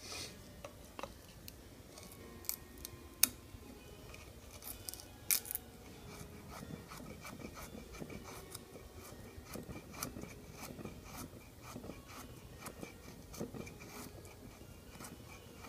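Knife blade shaving thin curls off a wooden stick to make a feather stick: a run of short scraping strokes, with a few sharper ticks in the first few seconds.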